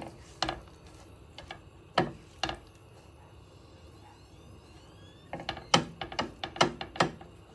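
Silicone spatula knocking and scraping against a frying pan while stirring grated carrots in oil: scattered sharp clicks, a few in the first half, then a quick run of them about five seconds in.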